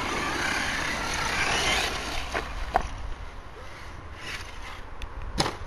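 Brushless electric motor of an HPI Savage RC monster truck whining as it accelerates, the pitch rising over about two seconds. A few sharp knocks follow, the loudest near the end.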